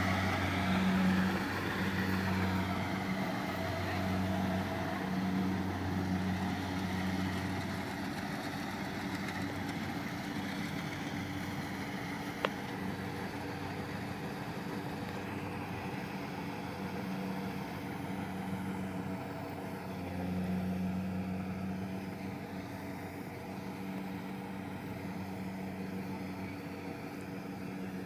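Small rice combine harvester's engine and threshing machinery running steadily under load while it harvests, a low, even hum. It swells a little about two-thirds of the way through, and there is one sharp click about halfway.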